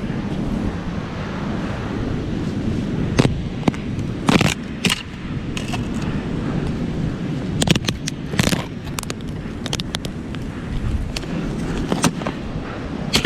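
Wind buffeting the microphone, with about seven separate sharp scrapes and knocks of a shovel digging a large buried metal object out of beach sand.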